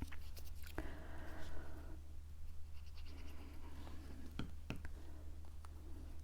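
Faint rustling and scratching of cardstock being handled, with a few sharp light taps, over a low steady hum.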